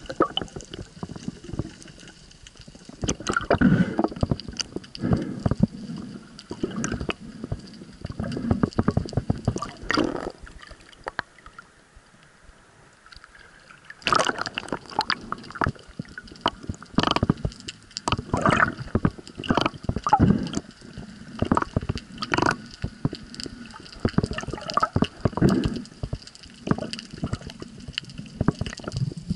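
Water sloshing and gurgling around a submerged action camera, with irregular knocks and bubbly bursts as the diver moves. It goes quieter a little before the middle, then picks up again abruptly about halfway through.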